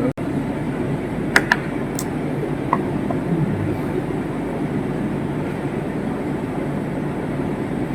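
Steady rushing background noise, with a few short clicks a little over a second in and around two seconds in.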